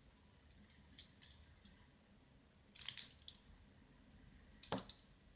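Faint, scattered clicks and short scrapes of a fidget spinner being handled, with a sharper click near the end. No steady spinning whir.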